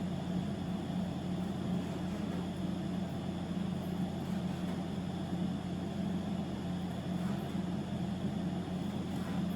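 A steady low machine hum, even and unchanging, with a couple of faint knife taps on a cutting board near the end.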